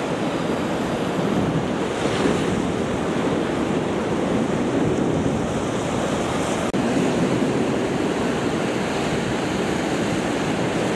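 Sea surf washing against a rocky shore with wind blowing across the microphone: a steady rushing noise that dips for an instant about two-thirds of the way through.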